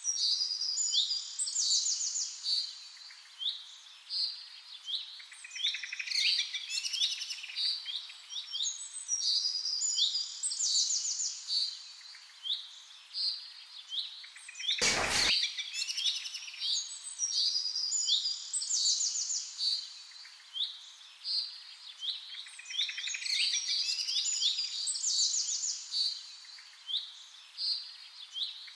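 Small birds chirping and trilling in high, quick phrases, with similar bursts of song coming back every several seconds. A single short click about halfway through.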